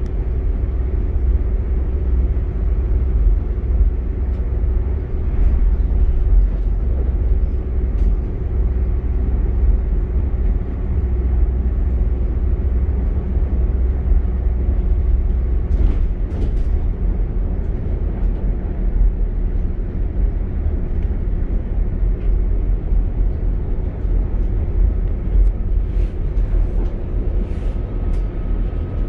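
Cabin noise inside a Northern Class 195 diesel multiple unit running at speed: a steady low rumble of wheels on rail with the underfloor diesel engine's hum. A few brief clicks and rattles come through, and a faint higher whine joins near the end.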